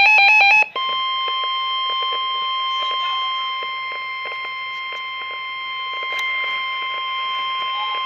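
A Reecom weather alert radio's rapid beeping alarm stops less than a second in. The NOAA Weather Radio 1050 Hz warning alarm tone follows, one steady, unwavering tone from the radio's speaker that marks the start of a warning message.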